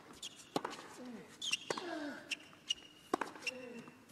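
Tennis rally on a hard court: a series of sharp racket strikes on the ball and ball bounces, roughly a second apart, with players' short grunts falling in pitch after several of the shots.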